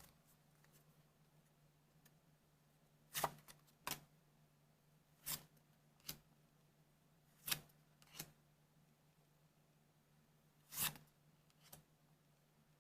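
Trading cards being handled and flipped one at a time: four pairs of short, crisp card slides or taps, the two in each pair under a second apart, with quiet gaps between the pairs.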